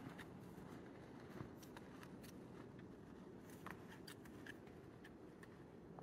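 Faint, irregular crunching of snowshoe footsteps on snow, over near silence.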